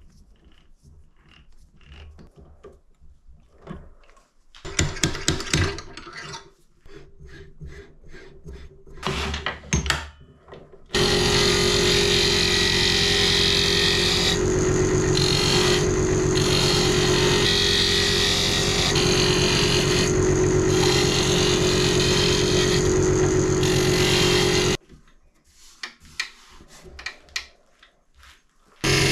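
Scattered clicks and metallic rattles as a four-jaw chuck is closed on a wooden blank. Then, about eleven seconds in, a wood lathe runs steadily with a turning tool cutting the spinning wood: a steady hum under a loud hiss of cutting that breaks off briefly a few times as the tool lifts away. It stops suddenly with a few seconds left.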